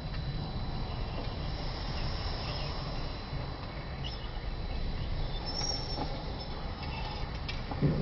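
Front-loading washing machine with a Digital Inverter motor running a wash, its drum turning and tumbling laundry in a steady low rumble. A few faint taps come late on.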